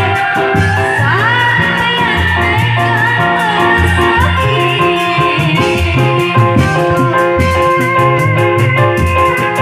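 Reog Dermayu music: a female singer carries a sliding, ornamented melody over instrumental accompaniment with a moving bass line and a quick, steady beat.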